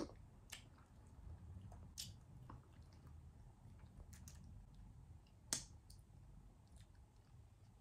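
Faint chewing of a candy with scattered small clicks, the sharpest about five and a half seconds in, over near-silent room tone.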